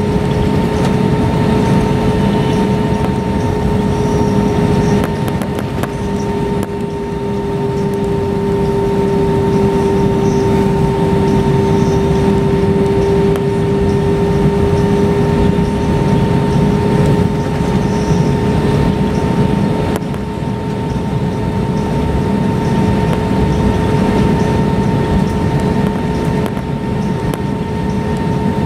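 Airbus A320-232's IAE V2500 turbofan engines at idle during taxi, heard from inside the cabin over the wing: a steady tonal hum over a low rumble.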